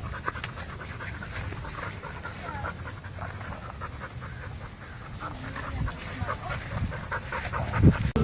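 A dog panting in quick, rapid breaths, with a brief louder sound near the end.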